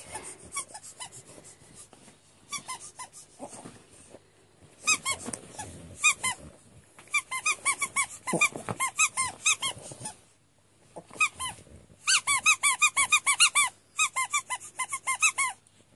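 Squeaky dog toy squeaked over and over in quick runs of short, high squeaks, broken by brief pauses, as small dogs bite and tug at it.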